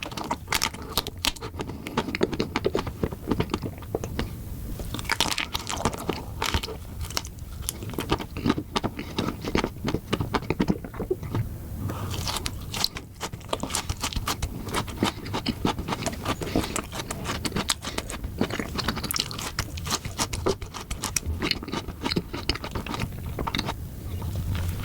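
A person biting and chewing chocolate, with many small irregular clicks and smacks throughout.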